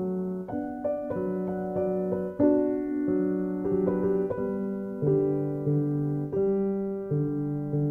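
Background music: a gentle piano melody, a new note or chord struck about every half second to second and each left to fade.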